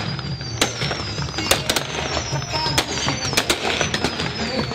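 Fireworks going off overhead in a rapid string of sharp bangs and crackles, with high, wavering whistles.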